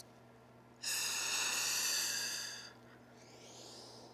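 A person breathing hard with effort: one long, loud breath starting about a second in and lasting about two seconds, then a softer, fading breath near the end.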